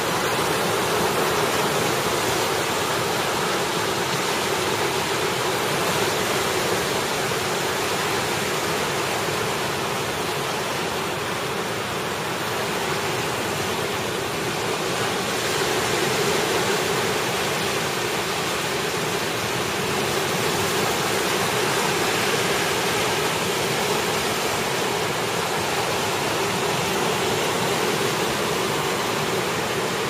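Choppy current of the Columbia River rushing and breaking in small waves against a pebble shore: a steady, loud wash of water noise with slight swells.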